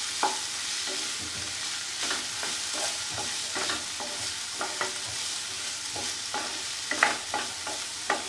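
Diced vegetables frying in oil in a nonstick kadai, a steady sizzle, while a spatula stirs them in with irregular scrapes and taps against the pan, mixing in the ground spices.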